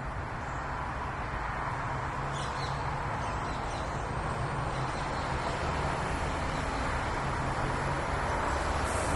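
Steady outdoor background noise with a low rumble underneath, and a faint short bird call about two and a half seconds in.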